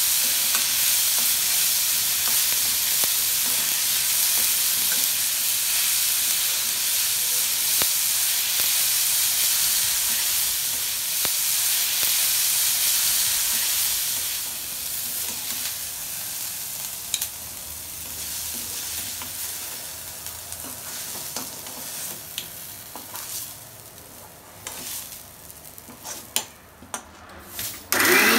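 Chopped onions and green chillies sizzling in oil in a metal kadai as a metal spatula stirs them, sautéing until they brown. The sizzle is steady at first and grows quieter about halfway through, leaving scattered clinks.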